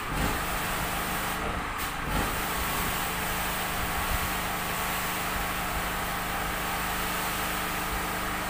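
Pressure washer running with a steady hum while its water jet hisses against the car. The spray breaks off briefly a couple of times near the start, then runs on steadily.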